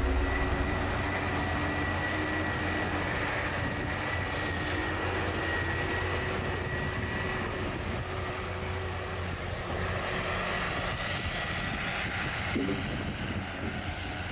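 Heavy forestry machines, a tracked-wheel logging machine with a grapple boom, running their diesel engines steadily, with a thin high whine held over the engine noise that fades out near the end.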